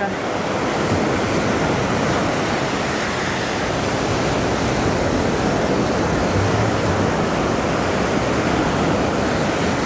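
Ocean surf breaking and washing up the sand, a steady rushing.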